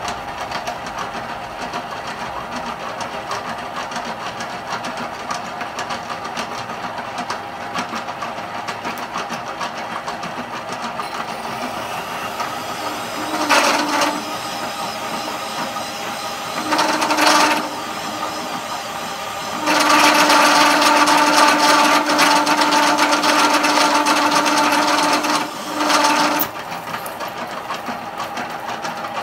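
A 2-inch annular cutter in a vertical milling machine at about 150 rpm, hand-fed hard, plunging through quarter-inch steel plate: a steady cutting noise over the running spindle. The cut breaks into loud, ringing chatter in short spells near the middle and a long spell of about six seconds near the end, typical of large annular cutters at certain feed rates.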